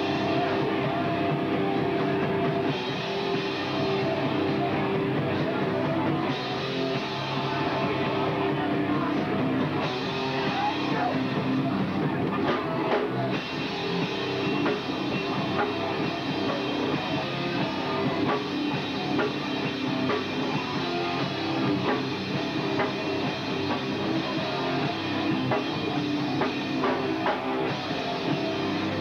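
Hardcore punk band playing live: distorted electric guitars and a drum kit, loud and without a break.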